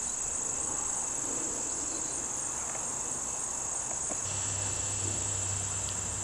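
Steady, high-pitched chorus of insects. A low, steady hum comes in about four seconds in.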